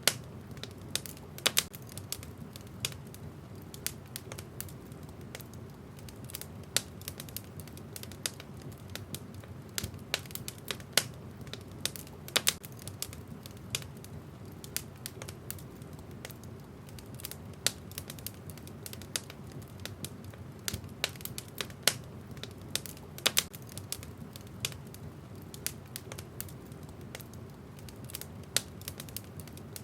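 Wood fire in a fireplace crackling: irregular sharp pops and snaps from the burning logs, several a second, over a steady low rumble of the flames.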